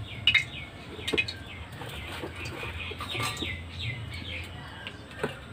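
Small birds chirping and twittering in quick, repeated short calls, with a few sharp clicks in between.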